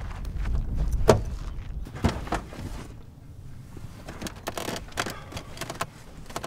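Knocks and small clicks and rattles of someone rummaging inside a car's interior, handling seat trim and loose wiring. There are two sharp knocks early on, then a run of quicker clicks.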